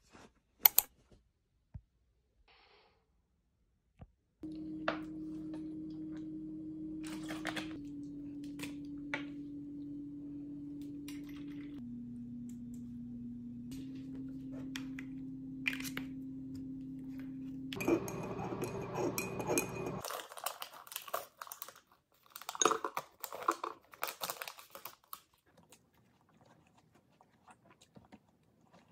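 A sharp snap of a tablet's folio cover under a second in. Then a steady low appliance hum runs for about fifteen seconds, stepping slightly in pitch a few times, and after it stops come light clinks and taps of a spoon and a glass bowl.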